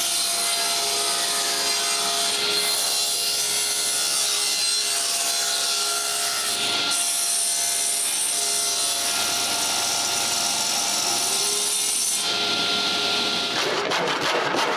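Power saw cutting through a board for a stair side, running steadily with a motor whine whose pitch shifts a couple of times as the cut goes on.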